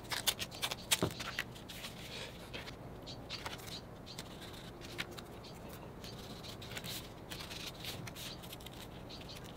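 Faint clicks and rustles of paper and masking tape being handled: small strips of tape torn off and pressed down, and a hand smoothing a paper print flat on mat board.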